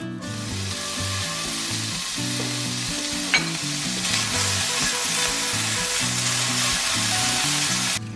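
Chopped bacon sizzling in a hot frying pan, starting suddenly as it goes in and stirred with a wooden spoon, with one sharp click about three seconds in. The sizzle cuts off near the end.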